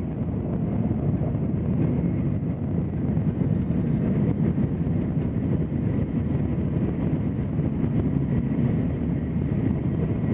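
Steady low rumble of a Tokaido Shinkansen train running at speed, heard from inside the passenger car.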